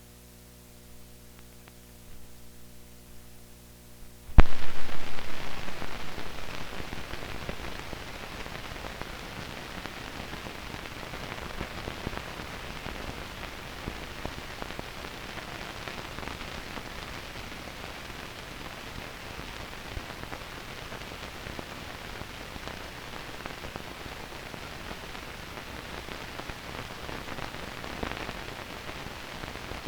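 Low electrical hum, then about four seconds in a sudden loud bang that fades away over a few seconds, giving way to a steady crackling hiss like old film soundtrack noise.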